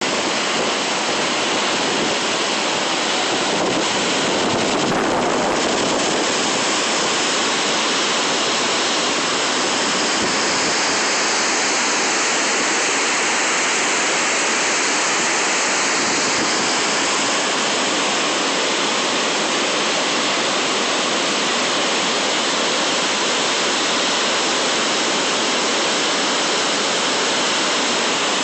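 Waterfall on the Black River pouring heavily, a loud steady rush of water, the normally gentle falls swollen with storm runoff.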